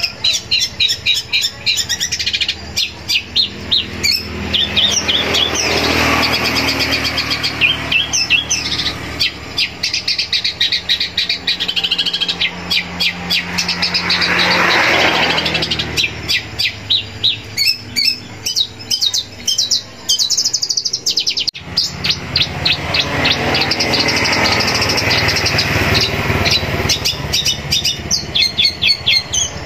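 Long-tailed shrike (cendet) singing a long, fast, varied song of rapid repeated high chirps and trills mixed with harsher scratchy phrases, a song rich in mimicked calls.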